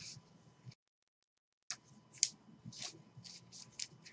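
Trading cards being handled and slid against one another: a run of short, crisp swishes and clicks. The sound drops out completely for about a second near the start.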